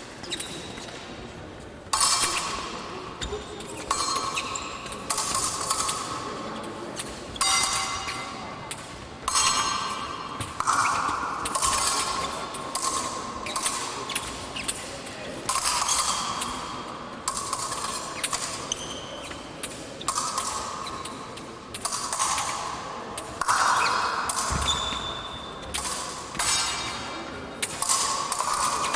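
Épée blades clashing and striking in a large hall: sharp metallic hits every one to two seconds, each ringing and echoing briefly.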